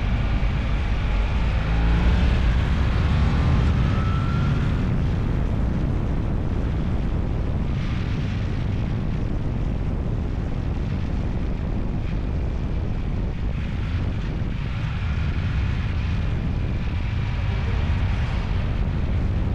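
Steady rumble of a moving vehicle's engine and road noise, with wind on the microphone.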